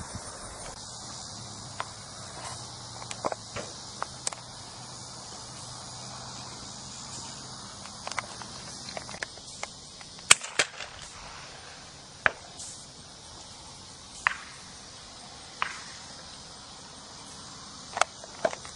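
Steady high insect chorus of the kind heard in a summer field, broken by scattered sharp clicks and knocks. The loudest comes about ten seconds in and a pair follows near the end.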